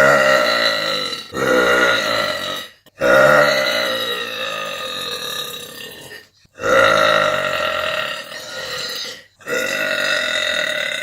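A woman belching: about five long, drawn-out burps in a row, each lasting one to three seconds, with short abrupt breaks between them.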